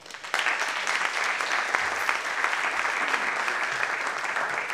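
An audience applauding: many people clapping together, starting a moment in and keeping on steadily.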